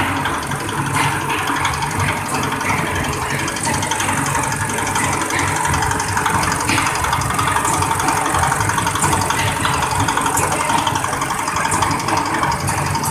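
Tea leaf withering and drying machine running steadily, a continuous mechanical drone with no break or change.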